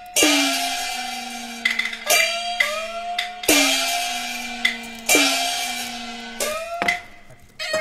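Traditional Chinese gong-and-cymbal percussion: gongs struck again and again, one ringing with a pitch that bends upward and a lower one sliding downward, with bright cymbal clashes in an uneven rhythm. It drops away briefly near the end.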